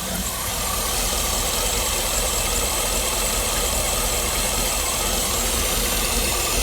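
2009 Cadillac Escalade's 6.2-litre V8 idling steadily with its valvetrain exposed, carrying the lifter tick the owner traces to a rocker that is slow to get oil; he suspects the oil pickup tube.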